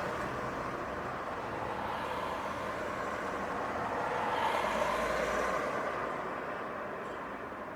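City street traffic: a steady wash of passing vehicles, with one vehicle going by and swelling about four to five seconds in, then fading away near the end.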